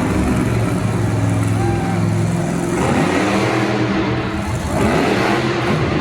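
Loud motor-vehicle engines running and revving, their pitch rising and falling from about halfway through over a noisy wash.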